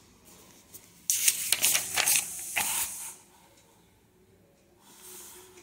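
Paper rustling and crinkling as a textbook page is turned, with a few sharp crackles, starting about a second in and lasting about two seconds.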